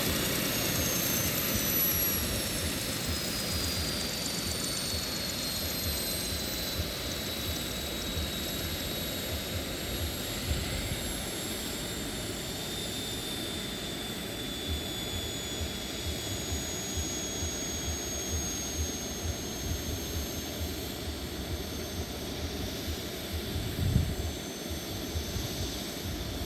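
Radio-controlled model helicopter flying, its high whine falling slowly in pitch over the first dozen seconds and then holding steady. A brief low thump comes near the end.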